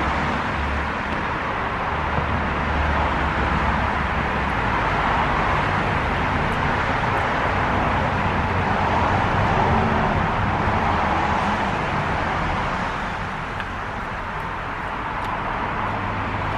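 Steady road traffic noise from a nearby street: a continuous rushing hum of passing vehicles that swells about ten seconds in and eases off a little shortly after.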